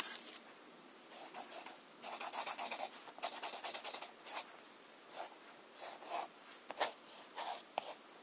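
Writing by hand on a sheet of paper: a series of short scratchy strokes with brief pauses between them as characters are drawn stroke by stroke.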